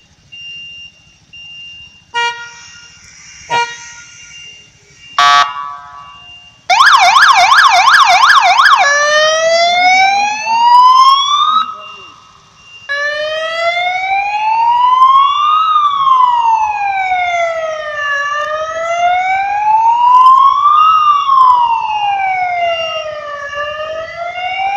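Electronic siren of a Rescue Power 4 tricycle ambulance being tested: a few short beeps first, then about two seconds of a rapid warbling yelp, then a slow wail that rises and falls about every five seconds.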